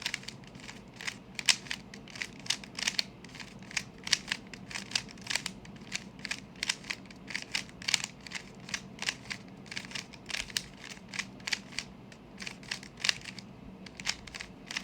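Rubik's Cube layers being turned by finger tricks: a run of quick, sharp plastic clicks and clacks, several a second, stopping a little before the end.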